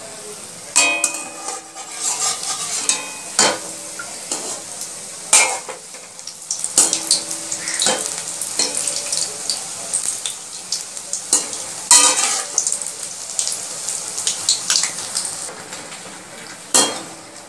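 Urad dal fritters sizzling as they deep-fry in hot oil in a kadai, with a perforated metal skimmer scraping and knocking against the pan every few seconds as they are turned. The boras are frying to golden brown, nearly done.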